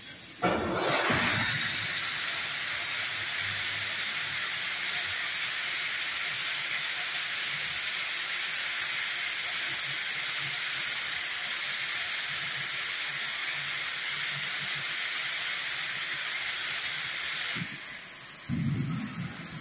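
Steam press hissing as it releases steam, a steady hiss that starts abruptly and runs for about seventeen seconds before cutting off sharply. A short low thump follows near the end.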